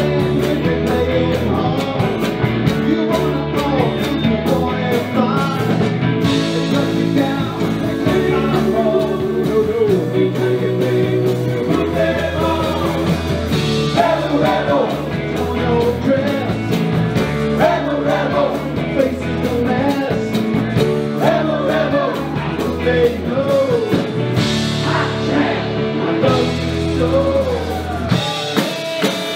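Live rock band playing amplified guitars, keyboard and drums, with a man singing lead into a microphone.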